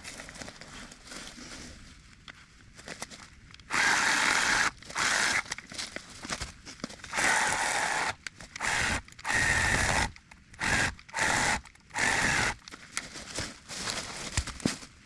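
Small Bosch electric chainsaw run in short trigger bursts, about eight of them from about four seconds in, its dull chain chewing at a thick branch of a fallen tree rather than cutting it cleanly.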